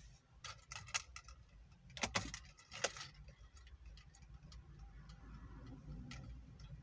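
Scattered sharp clicks and taps in the first three seconds. Then a faint low rumble builds as an electric regional train approaches the level crossing, heard from inside a car.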